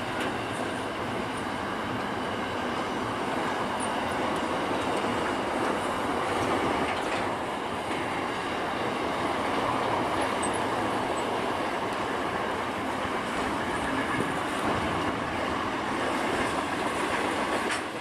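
Diesel-hauled coal train passing at a distance: a steady rumble and clatter of the wagons' wheels on the rails, with the locomotives working at the head.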